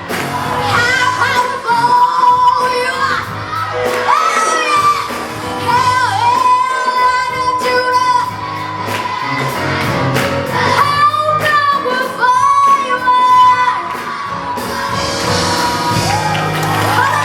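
Live gospel praise song: a lead voice sings melodic runs over band accompaniment, with shouts mixed in.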